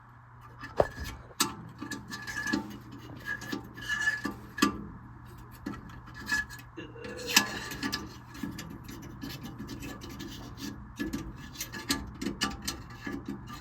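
Irregular metallic clicks, taps and brief rubbing of hands handling furnace parts as the cleaned flame sensor is fitted back into its mount, over a low steady hum.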